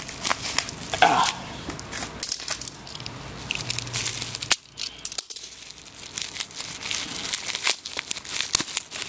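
Bubble-wrap packaging crinkling and crackling irregularly as it is unwrapped by hand, with a short lull a little before halfway.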